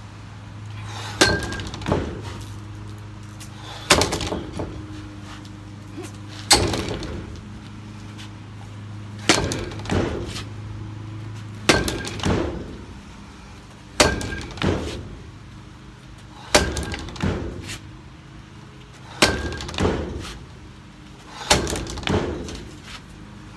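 Bat hitting the tethered ball of a Hit-A-Way swing trainer again and again: a sharp crack about every two and a half seconds, nine times, each followed by a couple of lighter knocks.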